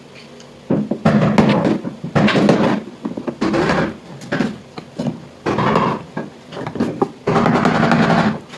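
A power saw cutting through hardplex fibre-cement board, running in about six short bursts of half a second to a second each, with brief pauses between.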